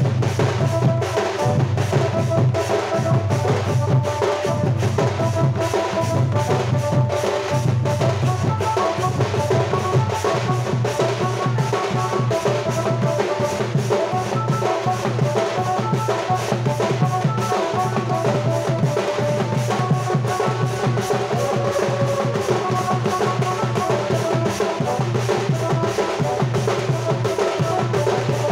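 Loud band-party dance music: a driving drum beat with heavy bass under a repeating melody line.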